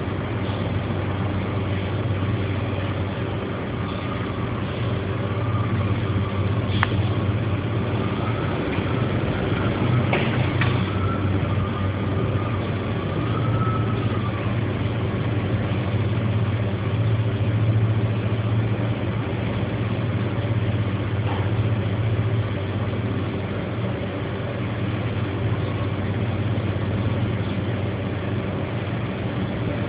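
Sandstorm wind rushing steadily over a constant low machine hum. A faint wavering whistle comes and goes in the middle.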